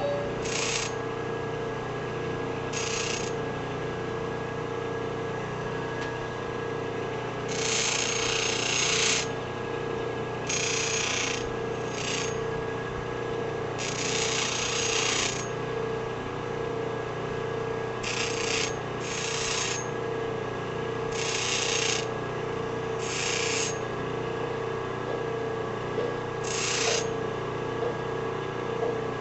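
Treadmill-motor-driven bench drill press running with a steady hum and whine, broken about a dozen times by short bursts of harsh scraping noise, some over a second long, at irregular intervals.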